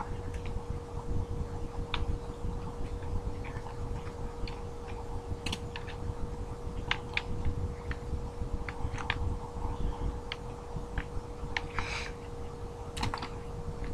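Devil sticks being juggled: irregular light taps and clicks as the hand sticks strike the centre stick, a few at a time with short gaps, over a steady faint hum.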